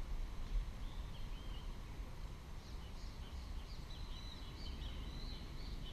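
Birds chirping and calling, a run of short high squiggly notes that starts about a second in and gets busier toward the end, over a low steady rumble.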